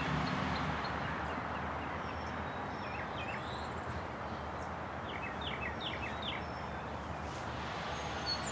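Steady outdoor background hiss with small birds chirping: scattered short downward chirps, a quick run of them about six seconds in, and more starting near the end.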